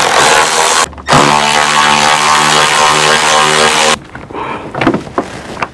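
Cordless electric ratchet spinning out a 10 mm headlight bolt: a short burst, then a steady motor whine of about three seconds that stops about four seconds in, followed by light handling clicks.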